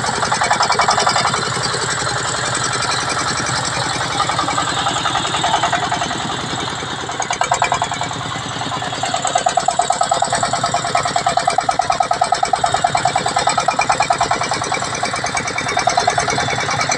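Single-cylinder diesel engine of a công nông farm cart chugging steadily under load, heard up close from the vehicle, with a fast, regular pulsing in loudness from about halfway through.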